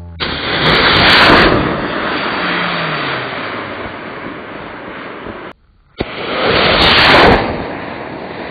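Model rocket motor lifting off with a sudden, loud rushing hiss that peaks about a second in, then eases to a steady rush of air. Partway through, the sound cuts off abruptly, and a second liftoff starts with the same rising rush.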